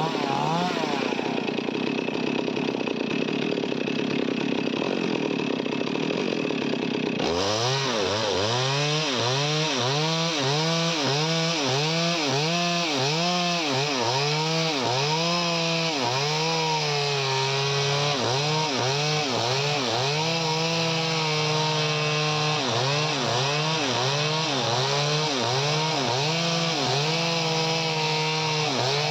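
Chainsaw running, likely cutting wood. About seven seconds in, the sound changes abruptly, and from then on the engine revs up and down over and over, roughly once a second, holding steady at times.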